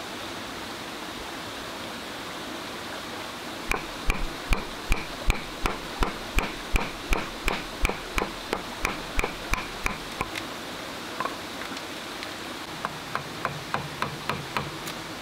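A wooden baton knocking on the back of a knife blade as it cuts a ring groove into a green bamboo pole. The knocks are sharp and even, about two or three a second; they start a few seconds in, pause briefly after about ten seconds, then resume more softly. A steady hiss of a running stream lies underneath.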